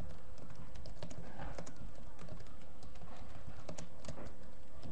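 Typing on a laptop keyboard: irregular light key clicks over a steady low hum.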